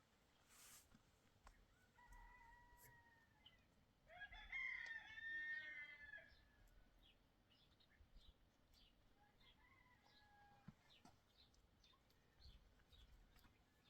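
A rooster crowing once, about four seconds in, for about two seconds; fainter, shorter calls come before and after it, with light scattered ticks.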